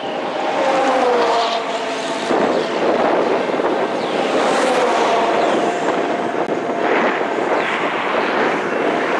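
Railroad grade-crossing NEG electronic bell starting to ring about half a second in and ringing on steadily as the crossing activates, its flashing lights and gate mechanisms warning of an approaching train.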